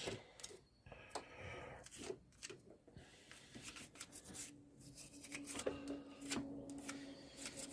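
Faint scrubbing of a toothbrush on the pressure washer pump's pistons, in short irregular strokes. A faint steady hum comes in about halfway.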